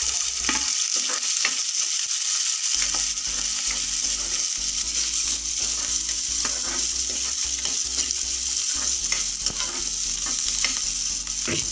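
Chopped carrots and green beans sizzling in hot mustard oil in a steel kadai, with frequent short clicks and scrapes of a spatula against the pan as they are stirred.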